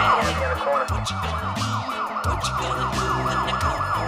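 Police siren in yelp mode, rapidly sweeping up and down in pitch several times a second.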